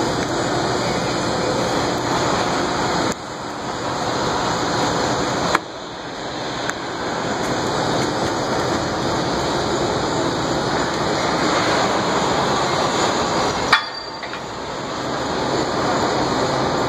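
Steady construction-site and city din with no clear single source, broken by two sharp metallic knocks about five and a half and fourteen seconds in.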